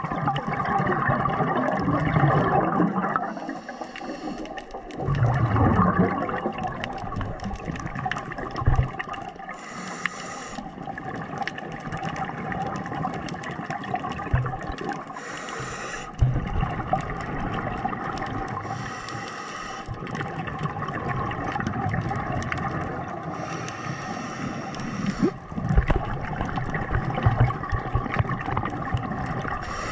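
A scuba diver's regulator breathing heard underwater: a hiss of each breath about every five to six seconds, with the bubbling and gurgling of exhaled air between them.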